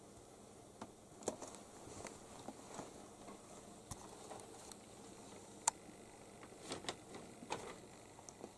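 Faint scattered clicks and light rustling from a ginger kitten playing on a carpet, the sharpest click a little before six seconds in.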